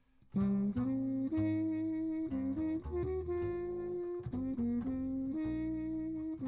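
Jazz music: a horn plays a slow melody of held notes over a bass line, starting just after a brief gap.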